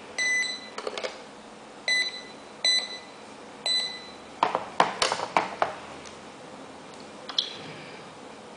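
Alarm control panel's keypad beeping at key presses: four short electronic beeps in the first four seconds. A quick run of clicks follows, then one short high chirp near the end.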